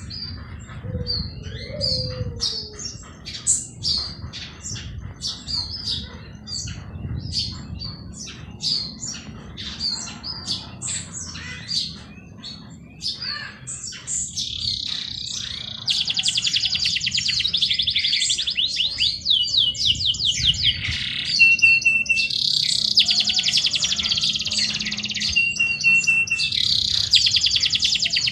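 Songbirds singing: scattered short high chirps for the first half, then from about halfway rapid trills take over and grow louder, with a few brief held whistled notes among them.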